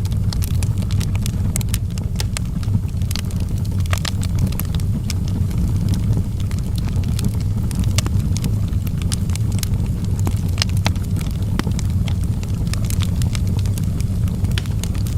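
Wood fire burning in a fireplace: a steady low rumble of the flames with frequent irregular crackles and pops from the burning logs.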